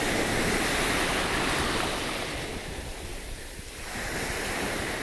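Small waves breaking and washing in over the sand in shallow surf, the wash easing about three seconds in and building again.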